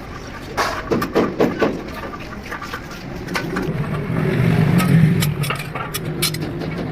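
A few sharp knocks, then a low engine drone that swells about four to five seconds in and eases off again.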